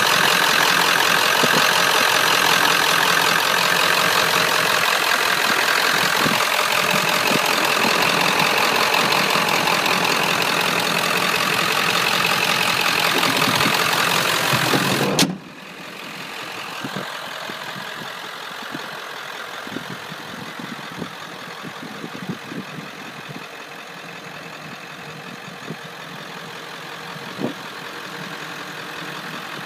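Ford 7.3-litre Powerstroke turbo diesel V8 idling steadily, heard close up in the open engine bay. About halfway through the sound drops suddenly and continues quieter, with a few faint knocks.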